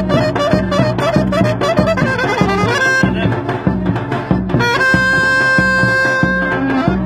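Turkish folk dance music: a saxophone plays a fast, ornamented melody over a steady davul drum beat of about two strokes a second. A long held note comes in about two-thirds of the way through, then the quick melody resumes.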